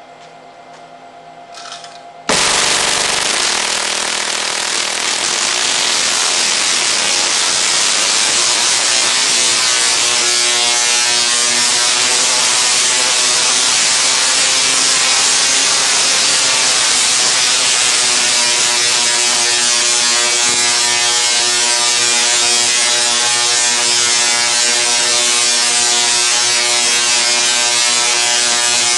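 SIDAC-driven Tesla coil, fed by a pole transformer, switching on about two seconds in and firing continuously: a loud, steady buzzing rasp of spark streamers arcing into the air, with a hum of many evenly spaced tones beneath it.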